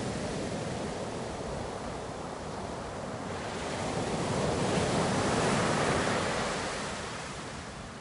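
Ocean waves: a steady wash of surf that swells to a peak about two-thirds of the way through, then falls away as the wave recedes.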